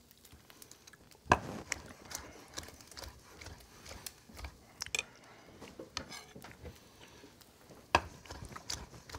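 Chef's knife slicing grilled chicken on a wooden cutting board: irregular knocks of the blade against the board, the loudest about a second in and near the end.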